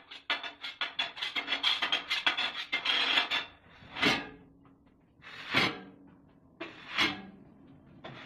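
Ceramic plates being dealt from a stack and slid across a table: a quick run of clicking and clattering, then three separate scraping slides, each swelling and fading in under a second.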